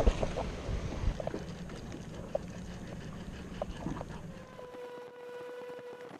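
Wind rumbling on the microphone over choppy water around a small boat, with a few light clicks. About four and a half seconds in the rumble drops away and a faint steady hum takes over.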